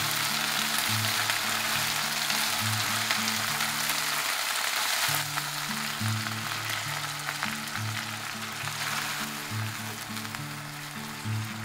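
Diced onion, pepper and pineapple sizzling in hot oil in a frying pan as they are stirred with a silicone spatula. About five seconds in, sauce is poured over them and the sizzle drops to a softer, steady frying.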